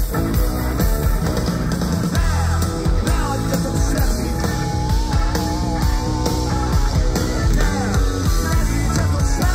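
Rock band playing live through a PA: electric guitars, bass and drums, with a wavering sung or lead melody line.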